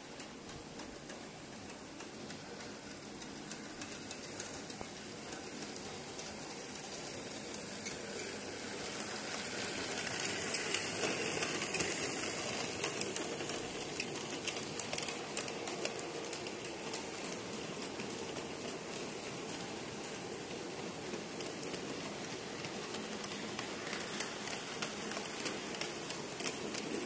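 OO-gauge model goods train double-headed by model 9F and 4MT steam locomotives rolling past on track, its wheels clicking over the rail joints in a steady clatter. It builds to its loudest about ten to thirteen seconds in as the locomotives pass, then the line of wagons clatters by a little quieter.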